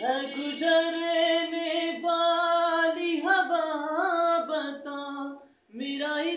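A solo voice singing a slow, unaccompanied melody: long held notes, then wavering ornamented turns in the middle, with a short breath break near the end before the next phrase.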